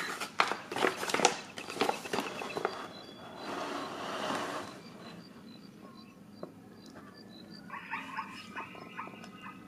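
Plastic foil blind bag crinkling and crackling in the hands as it is held up and turned over, loudest in the first few seconds. Near the end come a few short pitched calls, animal-like.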